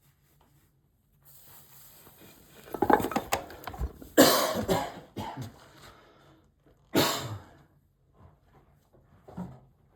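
A person coughing, two loud sudden coughs about four and seven seconds in, with a few short knocks just before the first.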